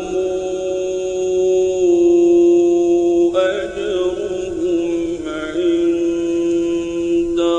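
A male reciter's voice in slow, melodic Quran recitation. He holds one long, steady note for about three seconds, then starts a new phrase with wavering melismatic ornaments, and begins another near the end.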